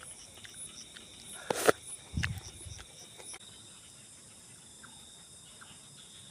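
Night insects chirping in a steady pulsing chorus, with a short loud noise about a second and a half in and dull thumps just after it.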